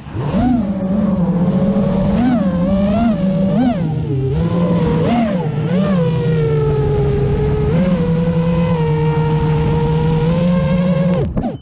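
FPV racing quadcopter's brushless motors humming. The pitch swoops up and back down several times with quick throttle punches, then holds steady, and the sound cuts off abruptly near the end.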